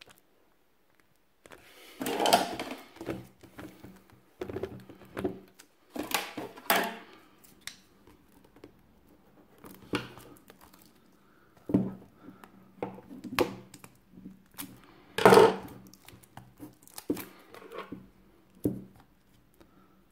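Plastic wrapping on a paperback book being cut with scissors and a knife and pulled off, crinkling and rustling in irregular bursts, the loudest about three-quarters of the way through.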